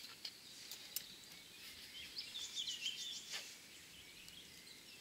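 Faint outdoor ambience with a small bird singing a quick run of high chirps about two to three seconds in, and a few light, sharp clicks in the first second.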